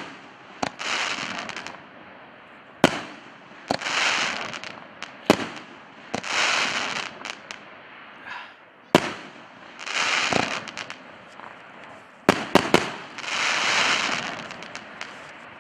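A 50mm 19-shot firework cake firing shell after shell, about one every three seconds. Each shot gives a sharp bang, followed by about a second of hissing as the stars burst and spread. Near the end, three bangs come in quick succession.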